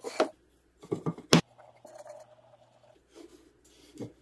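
Wooden 2x4 boards handled on a plywood workbench: a few knocks about a second in, the sharpest a single clack as a board is set down, then softer scraping as the boards are slid into place to form a frame.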